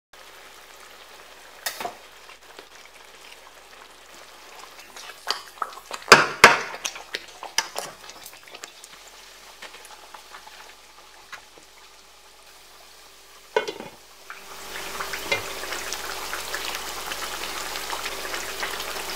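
Pot of red pepper stew sizzling and bubbling, with loud knocks and clatters about six seconds in as fried fish pieces are put in with a wooden spatula. The sizzling grows louder and fuller for the last few seconds.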